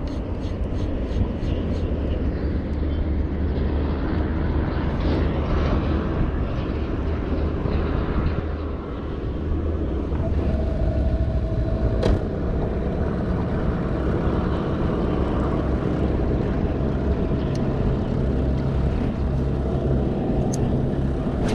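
Small boat's outboard motor running steadily at low trolling speed, with wind and water noise over it. A single sharp click about twelve seconds in.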